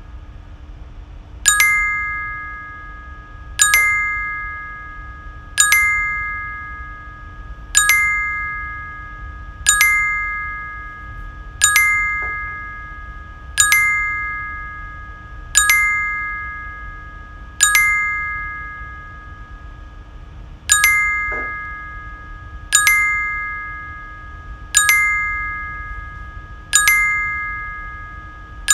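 Monitoring dashboard's alert chime repeating about every two seconds, each a bright ding that rings and fades. It is the alarm signalling that the coffee pot is empty and needs refilling.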